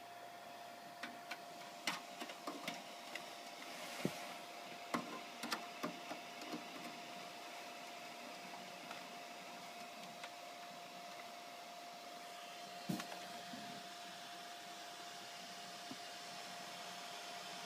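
Scattered sharp clicks and light knocks, bunched in the first half and once more near the end, over a faint steady whine and hiss.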